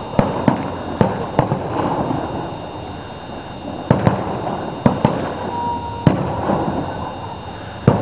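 Aerial firework shells bursting at a distance: a run of sharp bangs, four in the first second and a half, a lull, then more bangs in ones and twos.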